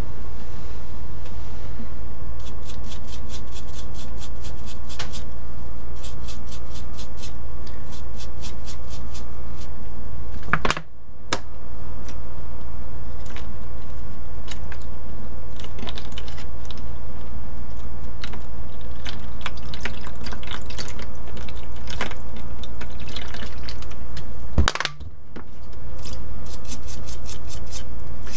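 A brush scrubbing a small stainless mesh pump-guard strainer over a tub of water, in runs of quick strokes about four a second, with water sloshing and being poured, over a steady low hum.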